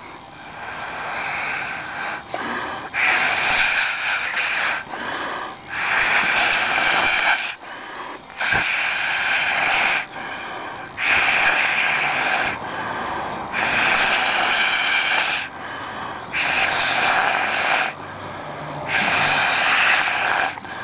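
Blowing hard through a straw into a thick cornstarch-and-water mixture (a non-Newtonian fluid), in about eight long puffs of a second and a half each, with short pauses for breath between.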